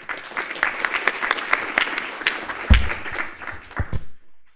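Audience applauding: a dense patter of handclaps that starts at once and dies away after about four seconds. Two dull, low thumps come through near the end.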